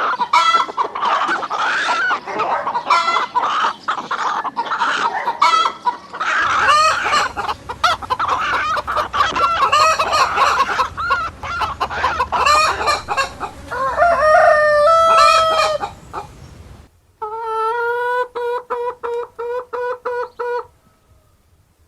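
Chickens clucking and cackling together, spliced from several recordings. Near the end a rooster crows with a long, rapidly pulsing call.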